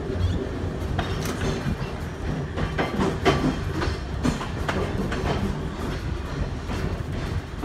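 Electric trolley car running along the track: a steady low rumble of wheels and running gear, with irregular clicks and clacks from the wheels on the rails, thickest in the middle.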